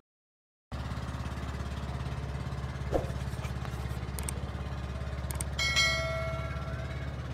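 A small engine running steadily with a fast, even pulsing beat, starting just under a second in. A short tone with overtones sounds over it about six seconds in.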